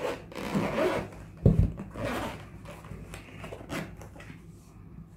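Zipper of a DJI Osmo hard-shell carrying case being pulled open along its edge, in scraping stretches, with a sharp thump about a second and a half in and quieter handling of the case after.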